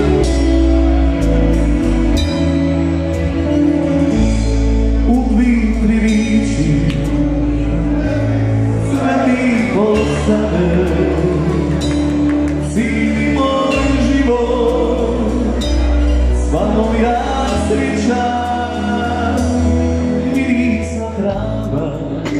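Male vocalist singing live into a microphone over a band's amplified accompaniment, with sustained low chords under the melody.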